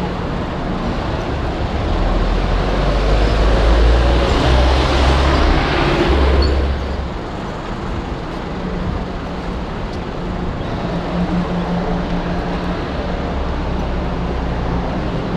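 Busy city street traffic noise, with a heavy vehicle passing close by: a low engine rumble that builds about two seconds in and falls away abruptly near the middle, leaving a steady traffic hum.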